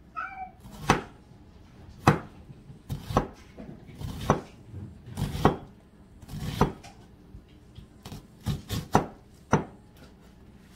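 Kitchen knife chopping an onion on a plastic cutting board: about a dozen sharp, uneven strikes, roughly one a second, some in quick pairs. A cat meows briefly right at the start.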